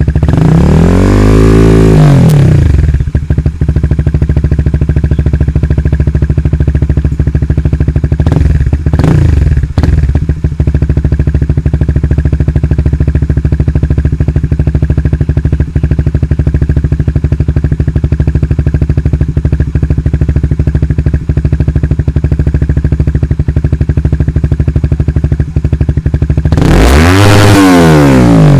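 Honda Supra GTR 150 single-cylinder engine idling through an aftermarket exhaust, blipped three times: a rev right at the start, a short blip about nine seconds in, and another rev near the end, each rising and falling back to idle.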